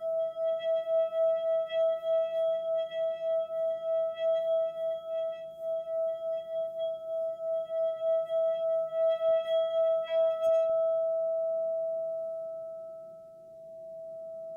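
A singing bowl sounding one steady note with an even, fast wobble in loudness, about three or four pulses a second. About ten seconds in its higher overtones cut off, leaving a plain pure tone that fades down and swells back near the end.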